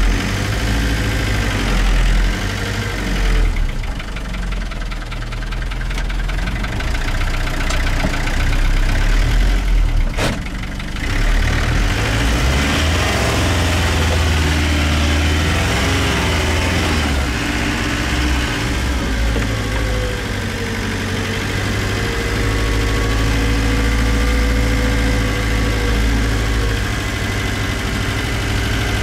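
Unimog 404's petrol straight-six engine running under load as the truck crawls over rough ground, heard from inside the cab. Its pitch rises and falls with the throttle, and there is a single sharp knock about ten seconds in.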